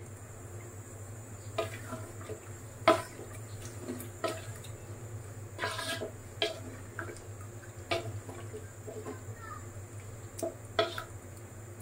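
A cooking spoon stirring chicken pieces in a pot, with irregular clinks and scrapes against the pot about every second or two, the sharpest about three seconds in, over a steady low hum. The meat is being stir-fried down with spices and tomato sauce.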